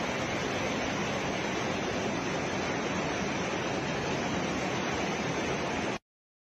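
Steady rushing noise of water, even and unbroken, that cuts off suddenly about six seconds in.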